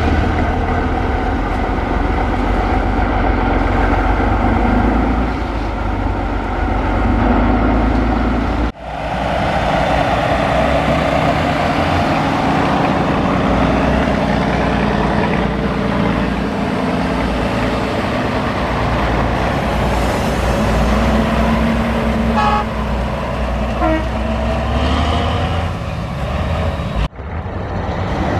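Heavy off-road trial trucks' diesel engines running hard, a Tatra 813 8x8 among them, with a deep steady rumble; the sound breaks off abruptly twice as the shot changes between trucks. About two-thirds of the way through, two short high tones sound over the engines.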